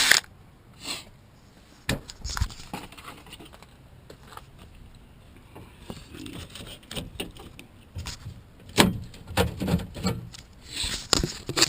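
A power drill cuts off right at the start. Then scattered light metallic clicks, knocks and rattles of a car door's inner handle and loose parts being handled, busiest in the last few seconds.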